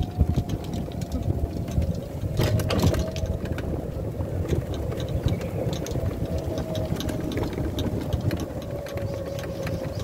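Golf cart driving along a paved cart path: a steady low rumble with a thin whine that slowly drops in pitch, and light rattling and clicking from the cart's body, with a louder clatter about two and a half seconds in.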